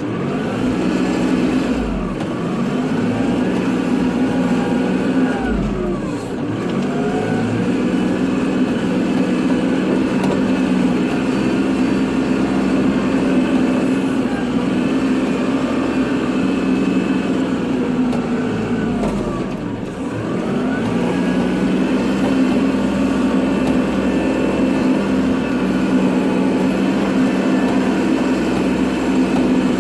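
Kubota tractor's diesel engine running steadily under load while plowing snow, its revs dipping and climbing back three times, about two, six and twenty seconds in.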